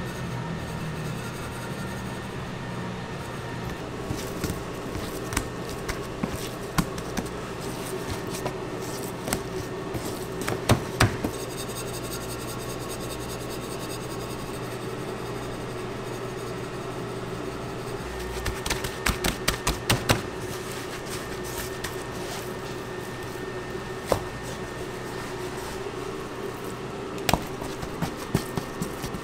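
Steady hum of commercial kitchen equipment, with scattered sharp clicks and knocks from handling on the work surface and a quick run of them about two-thirds of the way through.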